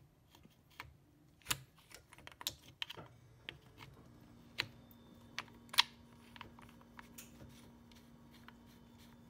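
Scattered small clicks and taps of metal and plastic parts as a kitchen faucet's pull-down spray head is fitted back together by hand, two sharper clicks standing out. A faint steady hum comes in about four seconds in.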